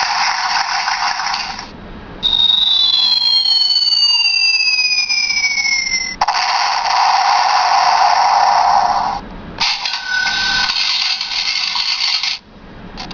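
Handheld plastic sound-effects machine playing a run of its electronic effects through a tiny speaker that cuts off the low end. A hiss-like effect gives way about two seconds in to tones gliding apart, one rising and one falling, for about four seconds; then more hiss-like effects follow, separated by short gaps, one with a brief steady beep.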